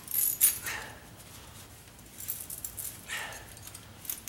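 Metal tire chain links clinking and rattling as the chain is pulled tight on the wheel, loudest within the first second, with fainter clinks a little after two seconds. A short softer sound about three seconds in.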